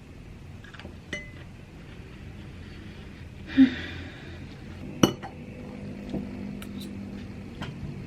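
A few isolated light clinks of cutlery against dishes or a glass during a meal, with a short scuffing noise about three and a half seconds in.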